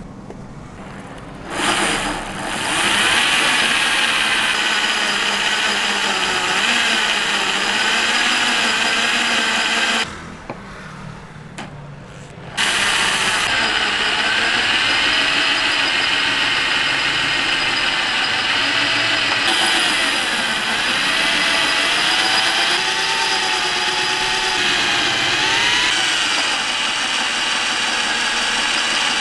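Hyundai 20 mm SDS Plus rotary hammer with a twist bit boring slowly into a thick, hard metal weight plate. The motor starts about a second and a half in and runs for about eight seconds. It stops for a couple of seconds, then starts again, and its pitch wavers with the load.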